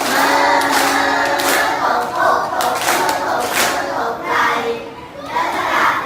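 A class of young children singing together in unison, with hand claps.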